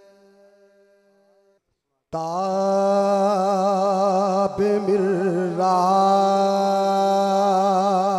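A man singing an Urdu devotional kalaam unaccompanied into a microphone with heavy echo, drawing out long notes that waver in ornamented runs over a steady low drone. A held note fades away at the start. After a short silence the singing comes back in loudly about two seconds in.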